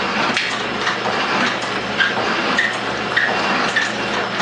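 Metal shaper cutting round bar, the ram stroking back and forth a little under twice a second with a click on each stroke. A short squeak comes with most strokes from the drive belt, which is starting to run up onto the lower pulley.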